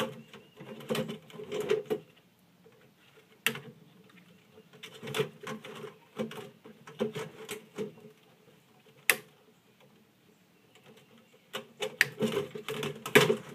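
Wire clippers snipping and working the small metal clips that hold a DVD player's circuit board, with sharp clicks and clacks of the board and the sheet-metal chassis being handled. The clicks come in irregular bursts with short pauses, a single sharp snap about nine seconds in, and the busiest, loudest run near the end.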